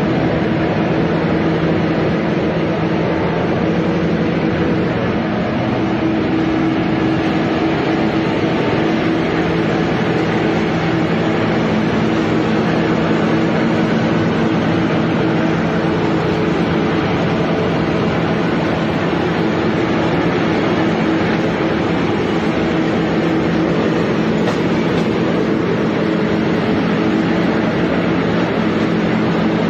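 Soap-making machinery running (roll mill and screw plodder): a steady mechanical drone with a constant low hum.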